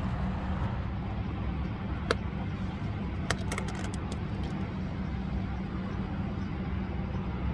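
Steady low vehicle engine rumble, with a few light plastic clicks about two and three and a half seconds in as a takeout container's lid is handled.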